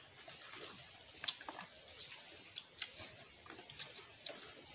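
Scattered small clicks, cracks and wet smacks of people eating with their hands: picking at food and chewing, the sharpest click a little over a second in.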